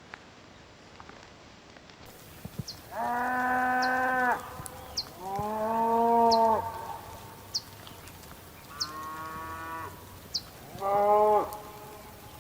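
Cattle mooing: four separate calls, each about a second long and held at a steady pitch, with a faint, short, high chirp repeating about once a second underneath.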